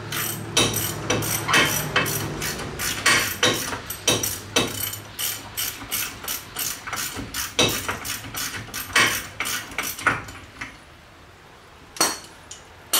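Hand ratchet wrench clicking in short strokes as a nut is backed off a ball-joint stud on a Ford TTB axle's steering knuckle, at an uneven pace of two or three clicks a second. The clicking stops about ten seconds in, followed by one lone clink near the end.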